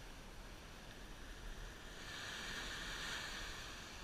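Small surf washing up a sandy beach: a steady hiss that swells about halfway through as a wave runs up the sand.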